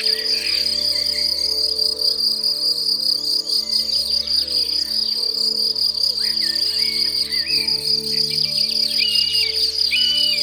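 A steady high-pitched insect trill, like a cricket's, over soft background music with sustained chords. Short bird chirps repeat over the second half.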